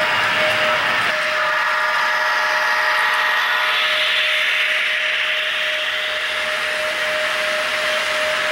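HO scale model train running past: a steady electric whine and rolling hiss from the passing locomotive and cars, with one constant tone held throughout. A chord of higher tones sounds for a few seconds, starting about a second in.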